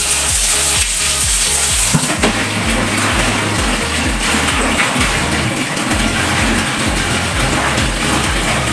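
Background music with a rhythmic, stepping bass line, steady and loud.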